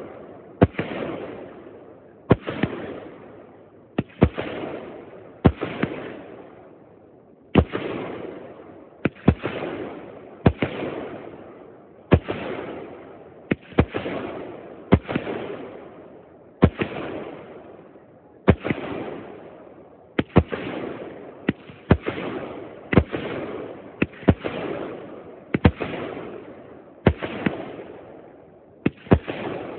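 Aerial fireworks bursting in a steady sequence, about one sharp bang every second and a half, sometimes two in quick succession. Each bang trails off over a second or so.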